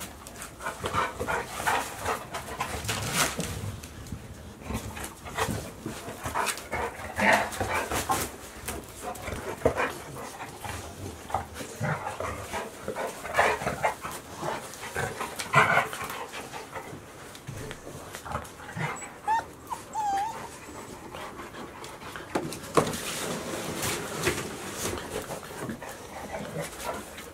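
Golden retriever puppies and an adult golden retriever play-fighting: irregular scuffling and clicks with short yips and whimpers, and a brief whine about two-thirds of the way through.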